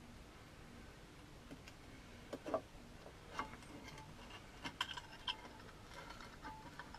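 Small metal parts being handled and refitted by hand on a motorcycle's engine side: faint at first, then scattered light metallic clicks and taps from about two seconds in, a few with a brief ring.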